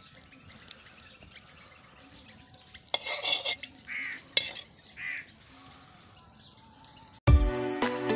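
A metal ladle scraping and clinking against a wok while semolina is stirred and roasted in oil over a wood fire. A crow caws a few times in the middle, and background music starts abruptly near the end.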